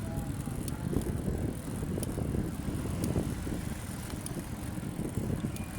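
Riding a bicycle: a steady low rumble of wind on the microphone and tyres on the road, with a few faint clicks and rattles.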